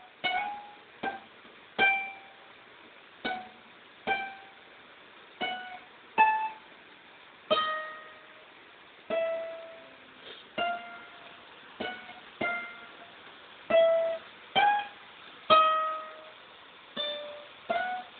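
A slow melody of single plucked notes on a stringed instrument, roughly one note a second, each struck sharply and quickly dying away.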